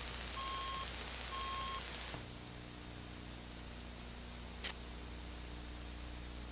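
Steady videotape hiss with short electronic beeps, each about half a second long, repeating roughly once a second. About two seconds in the recording cuts abruptly to quieter hiss with a low hum, and a single sharp click comes a little past the middle.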